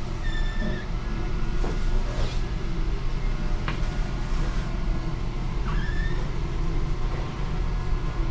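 Steady low mechanical hum and rumble, with two brief high squeaks, one just after the start and one about six seconds in.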